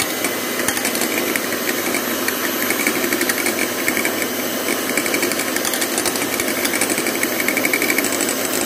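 Electric hand mixer running steadily at low speed, its two beaters whipping eggs in a glass bowl, with a fast rattle.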